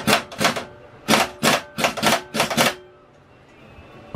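Sharp metallic clacks and knocks, about ten in quick, uneven succession, then one more near the end, as a Briggs & Stratton engine's finned flywheel and starter cup are fitted back onto the crankshaft.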